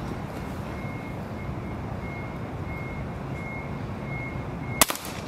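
Steady low rumble of a nearby vehicle with a faint backup alarm beeping about every two-thirds of a second; near the end a single sharp crack of an air rifle shot.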